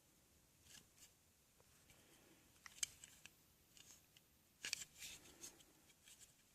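Near silence with a few faint clicks and rustles of packaging being handled and opened, the clearest about three seconds in and just before five seconds.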